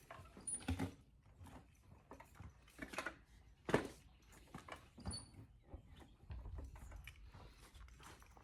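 Manual lever-type bead breaker being worked on a motorcycle tire: scattered clicks, knocks and creaks from the press and the rubber, with one sharper knock about four seconds in.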